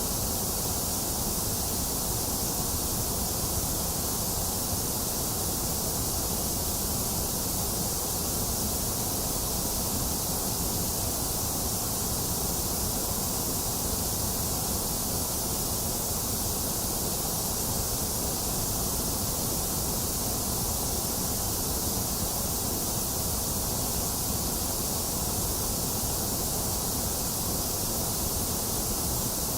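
Steady, unchanging generated white noise: a continuous hiss over a low rumble, with the middle range dipped.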